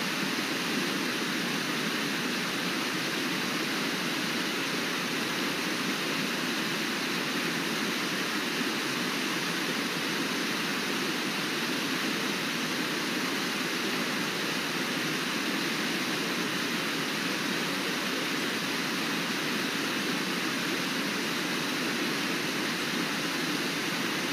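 Brooks Falls, a broad low waterfall on the Brooks River, rushing steadily as water pours over the ledge: an even, unbroken wash of water noise.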